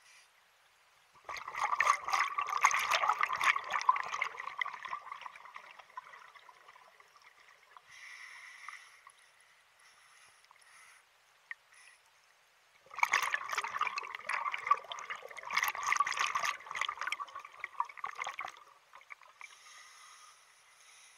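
Scuba diver's exhaled bubbles from the regulator exhaust, two long bubbling bursts of several seconds each, about a second in and again about halfway through, with a faint hiss between them.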